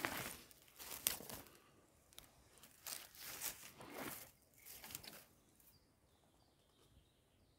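Dry fallen leaves rustling and crunching in a few short, irregular bursts as the leaf litter is disturbed while a shed antler is picked up and handled. It dies down to quiet after about five seconds.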